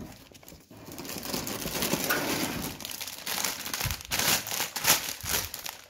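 Plastic bags of LEGO pieces crinkling and rustling as they are handled, with a few short crackles.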